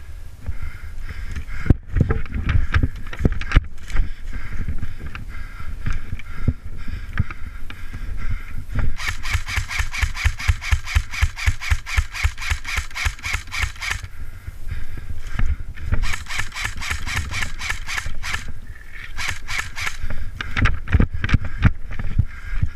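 Rapid runs of sharp, evenly spaced mechanical clicks in several long bursts, one in the middle and two shorter ones later, typical of an electric airsoft rifle (CYMA CQB-R) firing on full auto. Earlier, irregular low thumps and rustling as the player moves through the woods.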